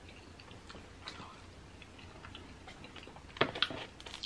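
Scissors cutting into a king crab leg's shell: a quick run of sharp cracking clicks about three and a half seconds in, after a few faint ticks of handling.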